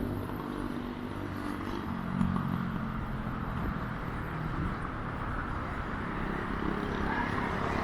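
Seaside road ambience: steady traffic noise, with wind rumbling on the microphone.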